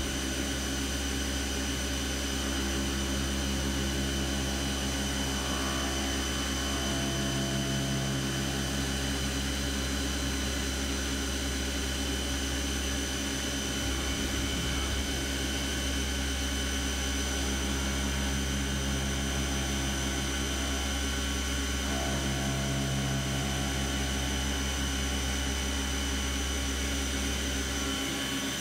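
Fadal CNC vertical mill running steadily, its end mill cutting an aluminum footpeg under flood coolant. A steady machine hum with several held tones, the low hum dropping out briefly about halfway through and again near the end.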